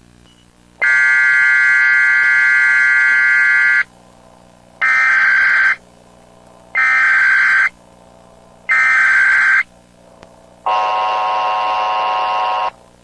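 Emergency Alert System signal: a three-second electronic tone, then three one-second bursts of screeching SAME header data tones a second apart, then about two seconds of the steady two-tone EAS attention signal.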